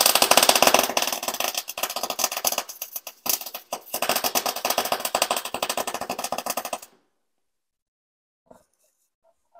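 Electric arc welding: the arc crackles and sputters steadily as a weld is laid on steel. It stops briefly about three seconds in, runs again, and cuts off near the end.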